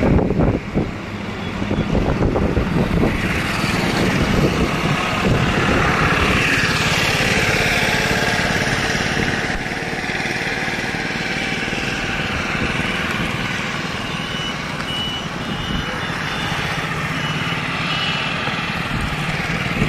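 Steady motor-vehicle engine noise with some rumble, and a run of short high beeps late on.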